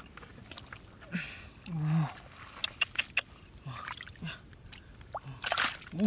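Hands sloshing and squelching through shallow mud and water while groping for fish, with irregular splashes and sharp wet clicks, the loudest splash just before the end.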